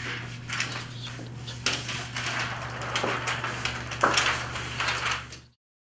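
Rustling and clattering handling noise with scattered knocks over a steady low hum, cutting off abruptly near the end.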